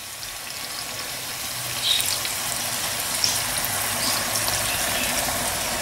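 Milk cap mushrooms frying in olive oil in a pan: a steady sizzle that swells about two seconds in as a glass of wine is poured into the hot pan, with a few small crackles.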